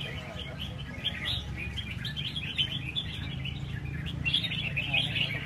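Caged red-whiskered bulbuls singing at once, a continuous jumble of quick, overlapping chirps and whistled notes. A low steady hum runs underneath.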